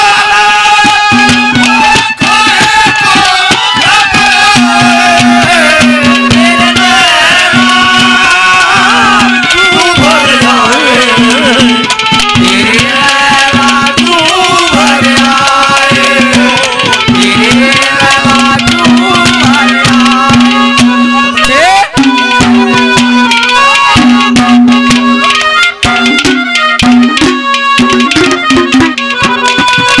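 Instrumental interlude of Haryanvi ragni folk music: a hand drum keeps up a dense beat under a bending, wavering melody, with a held low note that drops in and out.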